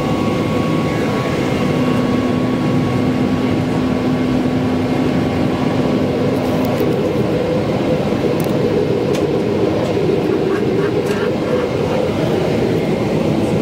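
Steady cabin roar inside a Boeing 777-200ER airliner on descent: engine and airflow noise with a few low, steady hums and some faint light ticks past the middle.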